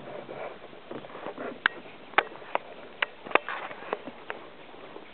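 Irregular sharp snaps and crackles of dry twigs and brush around an African elephant moving close by, over a faint rustling; the loudest snaps come a little over two and three seconds in.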